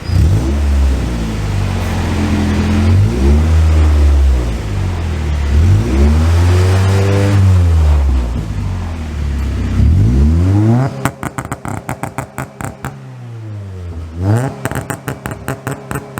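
Acura Integra B-series four-cylinder revved in a series of throttle blips through a catless 2.5-inch exhaust with a Vibrant Ultra Quiet resonator, the note rising and falling each time. It sounds quieter and more throaty than before, without rasp. About eleven seconds in the sound turns quieter and choppy, with a couple more blips.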